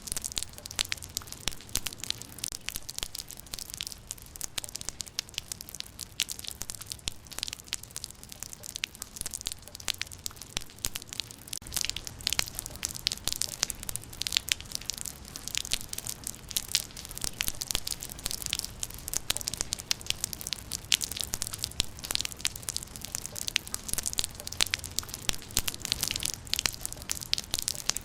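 Rain falling, with a dense patter of individual drops striking a hard surface; it grows heavier about twelve seconds in.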